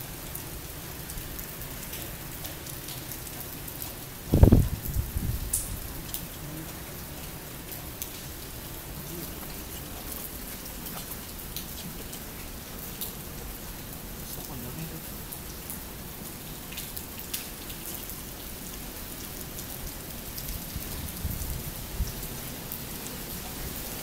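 Typhoon rain falling steadily, with scattered drip ticks. About four seconds in there is a brief, loud low rumble.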